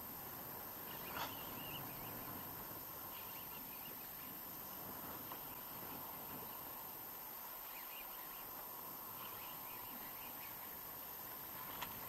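Steady wind and choppy sea water lapping, with one short knock about a second in. Right at the end a hooked fish starts splashing at the surface.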